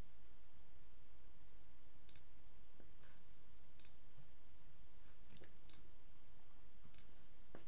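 Scattered clicks of a computer mouse and keyboard, about seven at irregular intervals, starting about two seconds in, over a steady faint hiss and low hum.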